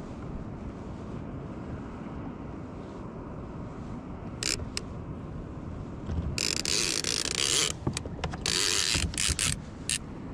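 A steady wash of water and wind, then about six seconds in a conventional fishing reel starts buzzing loudly in several runs, its drag giving line as a hooked fish pulls away. The angler takes the fish for a shark.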